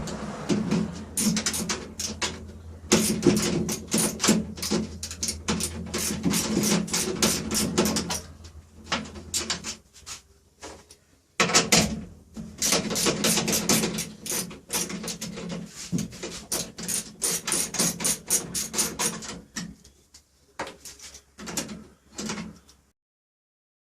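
Hand ratchet clicking in long quick runs separated by short pauses, working the screws of a truck door latch.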